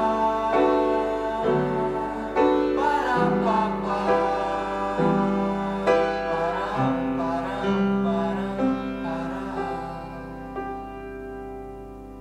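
Closing bars of a song: sustained instrumental chords under a wavering melody line, fading out steadily over the last few seconds.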